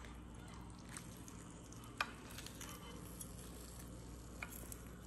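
Faint clinks of a metal fork and spoon against a glass baking dish while lifting out pieces of grilled mackerel, one sharp clink about two seconds in and a softer one near the end, over a steady low hum.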